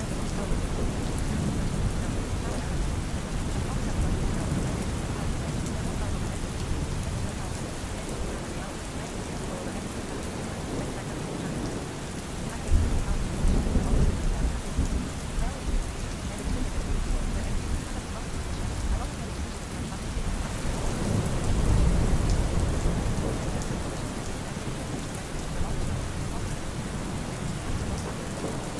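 Steady rain with thunder: a low rumble rolls in about halfway through and another swells near the last third.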